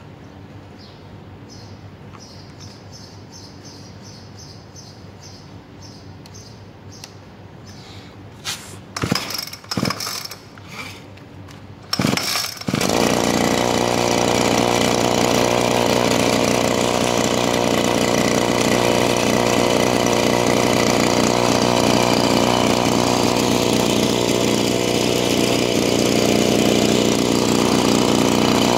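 Robin Subaru brush cutter's small petrol engine starting: a few short knocks, then it catches a little before halfway and runs steadily, back in running order after its carburetor was cleaned.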